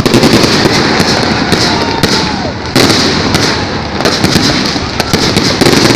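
Fireworks display going off in a dense, rapid run of cracks and bangs, with a louder volley starting about halfway through.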